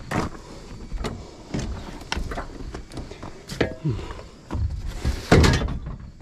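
Tools being loaded into a pickup's bed under its camper shell: a wooden-handled shovel and a vacuum hose knocking and scraping as they slide in, with the loudest clatter about five seconds in.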